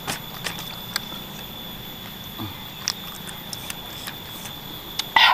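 A person eating: chewing with scattered light clicks, and a brief louder sound near the end.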